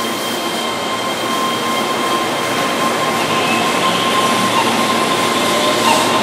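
Keihan 13000-series electric train pulling away from the platform: a steady electric whine from its traction motors' inverter over the rumble of the wheels, starting to rise in pitch near the end as it picks up speed.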